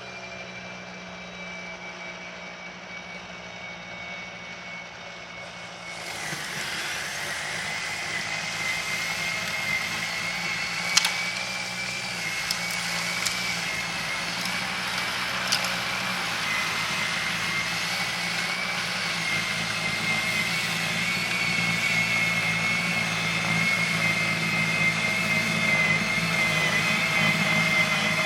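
EGO electric two-stage snow blower running with a steady high whine over a low hum. About six seconds in it gets louder and a rushing noise joins, with a few sharp clicks later on.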